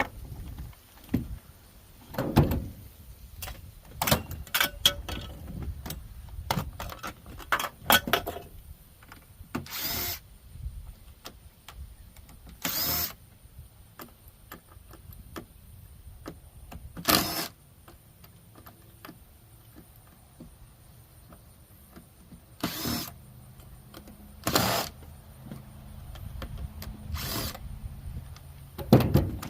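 Scrapping work on a refrigerator: irregular metal clanks, knocks and rattles, broken by several short runs of a power tool, each about half a second to a second long.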